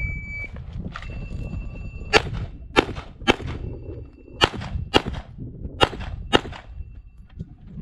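Shot-timer beep, then seven pistol shots: three in quick succession, followed by two pairs about half a second apart.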